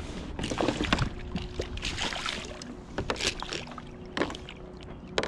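A hooked fish splashing at the surface beside a plastic kayak as it is landed with a metal lip-gripper. Several sharp knocks and clicks of gear against the hull are mixed in.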